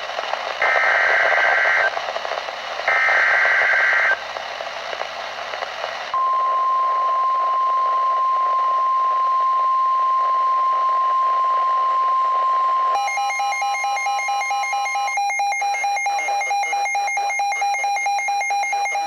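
Weather radio emergency alert: two screeching bursts of digital SAME header data over reception hiss, then the steady single-pitched NOAA Weather Radio warning alarm tone held for about nine seconds, marking a severe thunderstorm warning. About two-thirds of the way through, a weather radio's own alarm starts up, a rapidly pulsing electronic tone that carries on.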